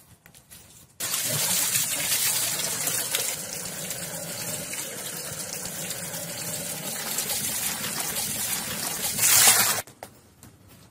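Water gushing and splashing into an aluminium water pot (kolshi) as it is filled, a steady splashing that starts abruptly about a second in, swells just before the end and cuts off suddenly.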